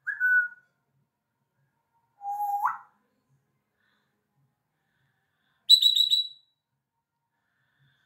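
African grey parrot whistling three short separate calls. The first is a clear whistle. About two seconds in comes a low whistle that jumps sharply upward at its end. Near six seconds it gives a quick, high, chirping run of a few notes.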